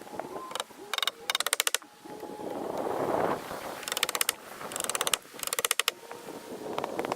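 Rapid mechanical clicking in short bursts of about half a second, five in all, each a fast run of evenly spaced clicks like a ratchet.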